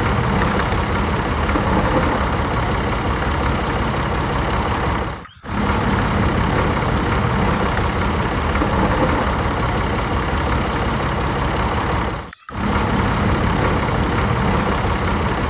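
Tractor engine sound running steadily. It drops out abruptly for a moment twice, about five seconds in and again about twelve seconds in.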